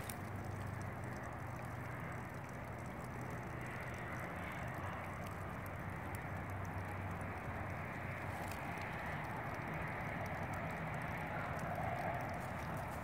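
Steady outdoor background noise: a continuous even hiss with a faint low hum underneath and no distinct events.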